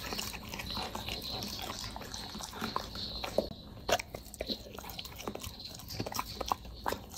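A dog chewing food close to the microphone: irregular wet clicks and crunches, with a sharper bite about four seconds in as it takes a piece from a hand.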